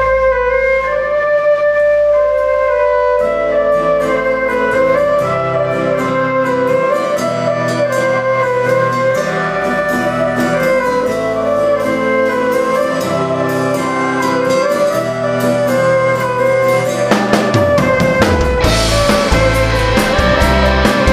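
Live band music: a fiddle carries the melody over a held low note, then drums, bass and guitars come in about three seconds in. Near the end the band swells into a louder, fuller section with cymbals.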